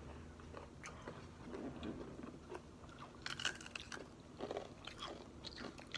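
Crunching and chewing of Takis rolled tortilla chips, with a cluster of louder, crisp crunches a little past halfway.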